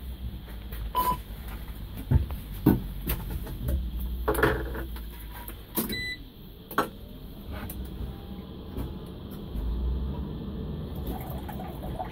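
Clicks and knocks of switches and controls in a Scania L94IB bus cab with the ignition on and the engine not running, with a short electronic beep about a second in and another, higher one about six seconds in.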